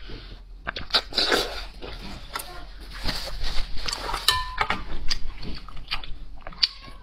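Close-miked eating: a person chewing and crunching a mouthful of food, with many small wet mouth clicks.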